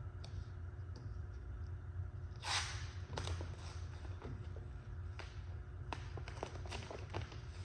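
Self-adhesive wood-grain vinyl wrap film being handled. A short swishing rustle comes about two and a half seconds in, then many small crackles and ticks, over a steady low hum.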